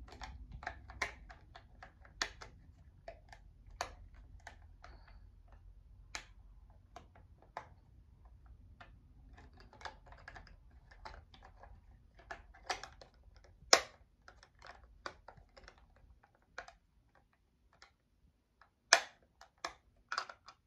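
Scattered small plastic clicks and taps at an irregular pace, from buttons being pressed on a talking alarm clock and the clock being handled while it is set; two clicks in the second half stand out louder.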